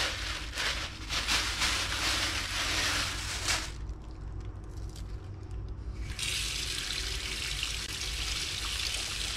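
A plastic bag rustling and crinkling as it is handled in a sink for the first few seconds. About six seconds in, a kitchen tap is turned on and water runs steadily into the sink.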